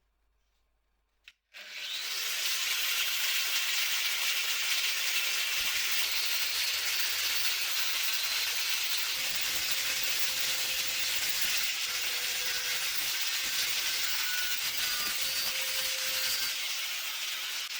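A power cutting disc, likely on an angle grinder, cutting away damaged steel from an old blacksmith's hammer head. It makes a steady, loud hissing scrape that starts abruptly about a second and a half in, after a single click.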